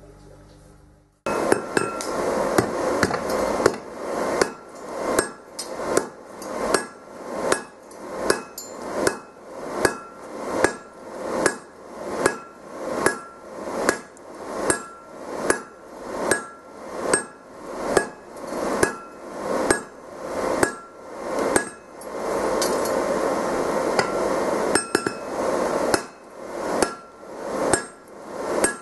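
A hand hammer strikes red-hot steel on an anvil in a steady rhythm, with strong blows about once a second and lighter taps between them, and a short metallic ring after each strike. The hammering starts abruptly about a second in, and a steady rushing noise swells for a few seconds near the end while the blows continue.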